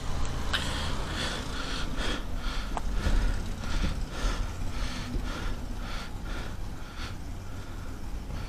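Footsteps of a person walking on a stone-paved street, a little over two steps a second, over a low steady rumble.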